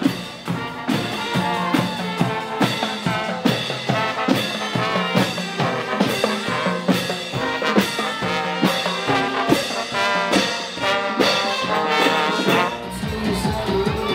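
Carnival marching band playing a march: trombones and trumpets over a steady drum beat. The music drops back a little near the end.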